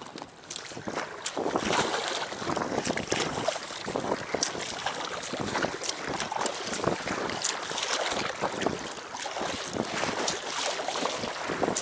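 Irregular rustling and scraping of clothing and gear against the inflatable packraft close to the microphone, many small crackles over a steady wind noise.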